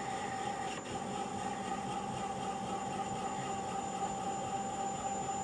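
Lobo CNC mini mill's X-axis servo motor driving the table along its leadscrew during the homing run, moving it toward its hard stop: a steady mechanical whine.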